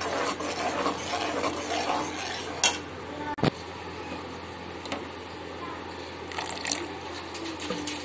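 Tomato ketchup sauce sizzling and bubbling in hot oil in a metal pot, stirred with a slotted metal spoon that scrapes and clinks against the pot. Two sharp clicks come about two and a half and three and a half seconds in.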